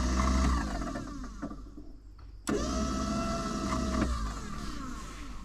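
A small electric motor runs in two separate bursts of about two seconds each, a steady whine with a low hum, as it is run up and then down.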